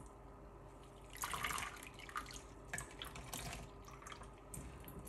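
Hands swishing grated potato in a bowl of cold water and lifting out a dripping handful, with soft, irregular splashes and drips: rinsing the starch out of the grated potato.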